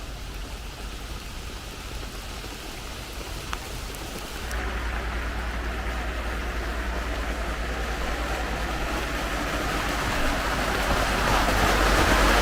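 Steady hiss of rain or rushing water. It jumps louder about four and a half seconds in and keeps building toward the end.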